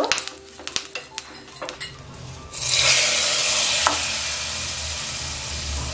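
Light clicking from the small tempering pan. About two and a half seconds in, a sudden loud sizzle starts as the hot-oil tempering of mustard seeds, dried red chillies, curry leaves and asafoetida is poured into the sambar. The hiss then slowly dies down.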